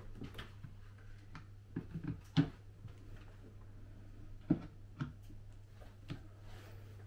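A wooden fold-out desk lid being pulled open and unfolded on its hinges: scattered clicks and knocks, the loudest about two and a half seconds in, over a steady low hum.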